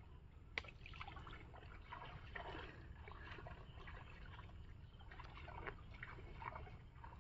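Faint, irregular splashing and trickling of water as someone wades through shallow flood water, over a steady low rumble. A single sharp click a little over half a second in.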